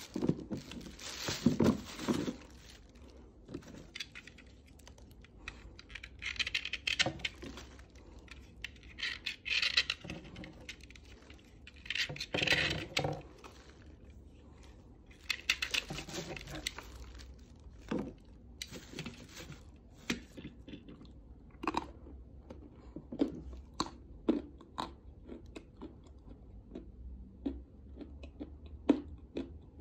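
Dry chunks of white Astana Ideal clay being broken apart by hand and scraped with a utility knife blade: crunching and crumbling, with many short sharp crackles. Several longer crunching stretches come in the first half, then smaller crackles.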